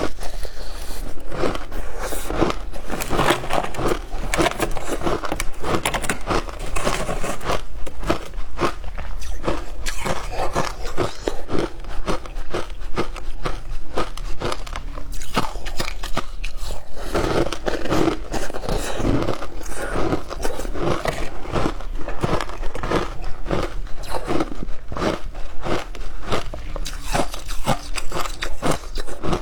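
Close-up crunching of shaved ice being bitten and chewed: a dense, irregular run of sharp crunches with no pause.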